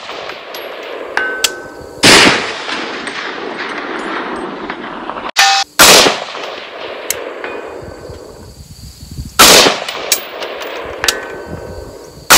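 Three shots from an AR-15 rifle, a few seconds apart, each with a long echo rolling off across the range. A faint metallic ring follows some of the shots by about a second and a half: the steel target being hit at 400 yards.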